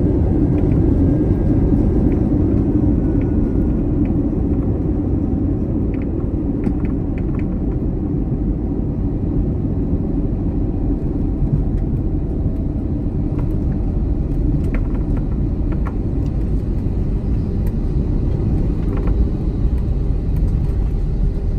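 Steady low rumble inside the cabin of an Airbus A321 rolling on the ground after landing: engine and wheel noise, easing a little over the first few seconds and then holding level.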